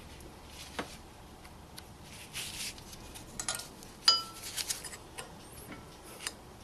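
Small metal brake parts being handled: light clicks and clinks, a short scrape, and one sharp ringing metallic clink about four seconds in.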